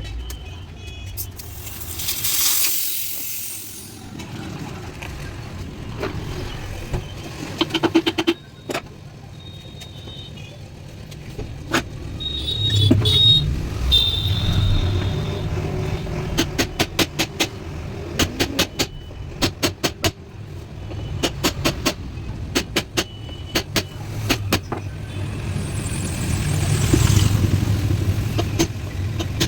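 Tyre-repair work with a low steady rumble underneath. Twice there is a loud burst of hissing air, and in between come runs of sharp metallic clicks or taps, several a second.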